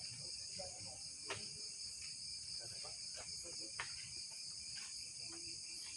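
Steady, high-pitched chorus of crickets or similar night insects. Two sharp clicks stand out, one a little over a second in and one near four seconds in.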